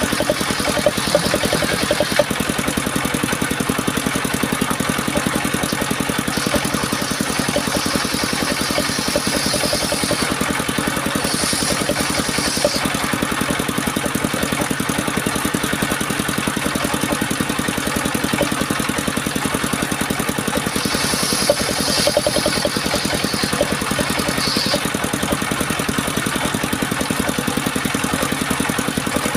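Engine-driven homemade circular saw rig running steadily, the engine at a fast even beat. A higher hiss comes in twice for a few seconds.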